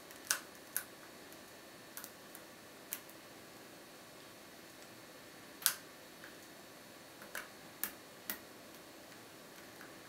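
Lock pick and tension wrench clicking against the pins of a five-pin GTV euro profile cylinder, which includes anti-pick pins, during picking. About a dozen small, irregular clicks, the loudest about a third of a second in and just before six seconds.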